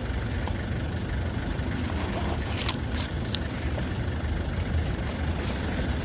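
London black cab's engine idling with a steady low rumble. A few light clicks come about halfway through.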